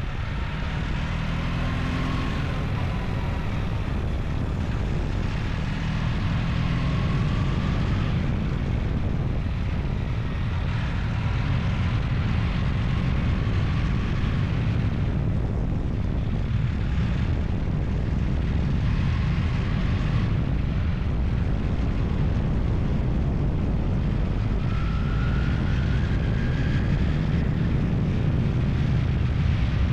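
An engine running steadily under load, with a faint whine that rises and falls every few seconds.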